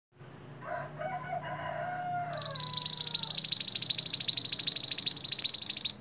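Caged male minivet (mantenan) singing a loud, very rapid high-pitched trill, about fifteen notes a second, starting about two seconds in and stopping abruptly just before the end. Before it, a rooster crows faintly in the background.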